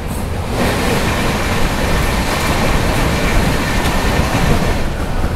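Passenger express train running, heard from inside a coach: a steady rush and rumble of wheels on rail that gets louder about half a second in.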